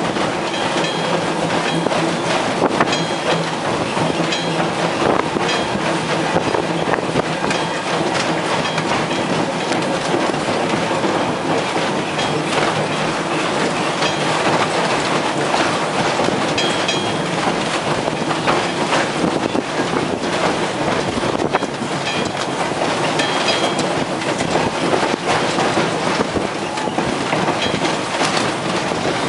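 Vintage electric streetcar running along the track, heard from on board: steel wheels clicking over rail joints over a steady rumble and low hum, with short high squeaks now and then.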